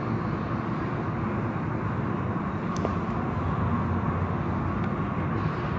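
Car wash running: a steady rumble and hiss of machinery and water, with a faint click about three seconds in.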